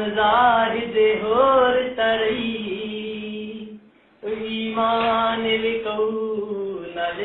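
Singing in long held notes with a wavering pitch, stopping briefly about four seconds in before carrying on.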